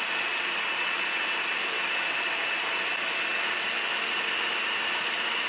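Countertop food processor running steadily, chopping cooked spinach and kale, its motor giving a high whine over an even rushing noise.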